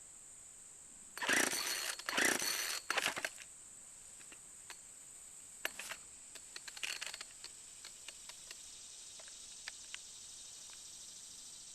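Two-stroke chainsaw being pull-started with the choke out: three quick yanks of the starter cord about a second in, the engine not catching, followed by scattered small clicks and handling noises.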